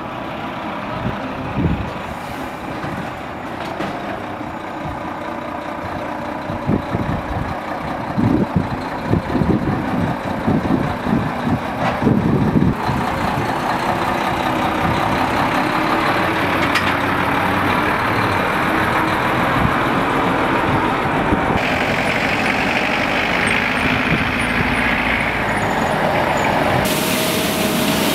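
Volvo FM truck pulling a semi-trailer drives slowly past, its diesel engine running.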